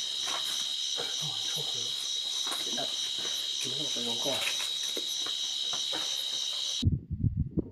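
Night insects chirping in a steady high-pitched trill, with faint knocks underneath. The trill cuts off suddenly near the end and a few low thumps follow.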